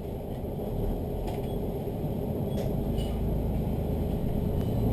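Diesel railcar's engine and running gear rumbling steadily as the train pulls slowly away from a station, growing gradually louder, with a few faint clicks and creaks.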